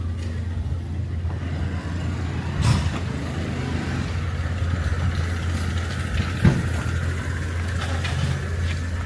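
Outdoor ambience heard while walking: a steady low rumble and hiss, with two short knocks, one a little under three seconds in and one about six and a half seconds in.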